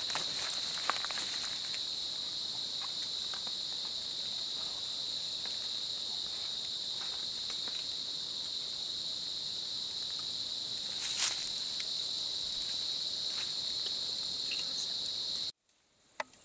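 Steady, high-pitched chorus of forest insects droning without a break, with a few faint clicks and a brief rustle about eleven seconds in. It stops abruptly near the end.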